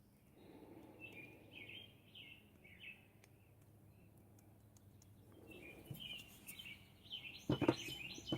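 Small birds chirping faintly in the background in short bursts, with a few soft knocks near the end.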